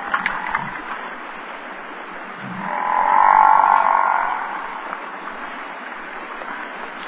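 An animal calling over a steady rough background, with one long, louder call that swells and fades about three seconds in.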